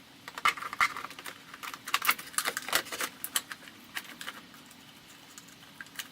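Plastic clicks, knocks and rattles of a car's airbox being handled and pushed back onto its mounting clips: a quick cluster over the first few seconds, then a few scattered taps.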